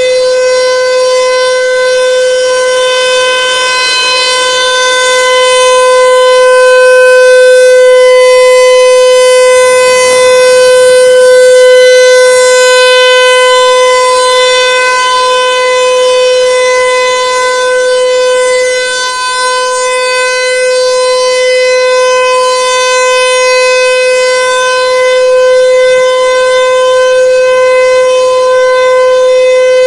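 American Signal Tempest 135 AC/DC rotating outdoor warning siren sounding a steady, loud single tone during a siren test. The tone holds one pitch, swelling and fading gently in loudness as the rotating horn sweeps past.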